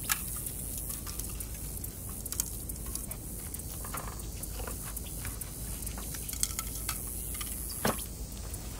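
Gloved hand sprinkling flake salt on a raw porterhouse steak, patting it in and turning the steak on a plate: soft handling sounds with scattered small clicks, and a sharper knock shortly before the end.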